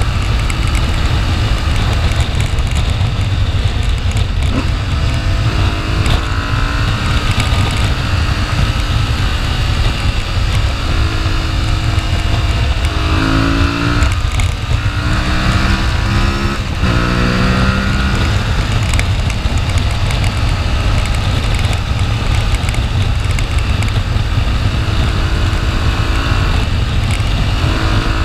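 Aprilia Tuareg 660's parallel-twin engine running at road speed, heard from a chest-mounted camera under a loud, steady low wind rumble. Around the middle the engine pitch drops and rises in steps several times, then settles back to a steady cruise.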